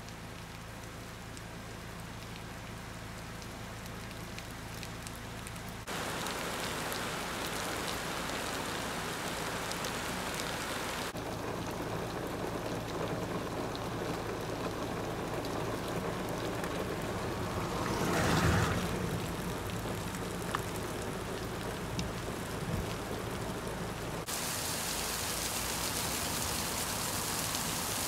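Steady rain falling. Its character changes abruptly a few times where takes are cut together, and it swells briefly, louder, about two-thirds of the way through.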